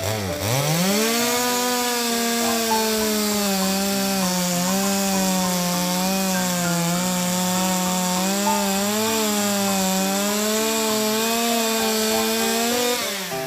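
Two-stroke chainsaw revving up to full speed in the first second and cutting wood at high speed, its pitch wavering slightly under load, then dropping off near the end.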